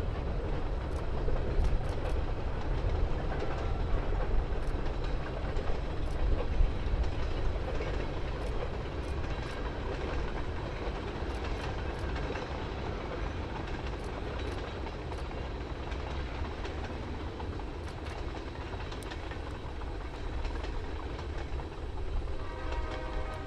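Freight train cars rolling past at a distance: a steady low rumble with irregular sharp clicks of wheels over the rail joints. A steady chord of tones comes in near the end.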